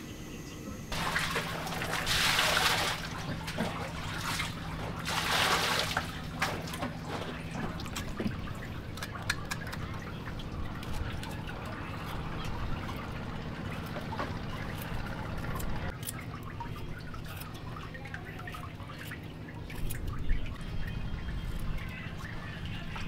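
Water pouring and splashing in two loud bursts, then small knife scrapes and clicks with water dripping, over a low steady hum that fades out about two-thirds of the way through.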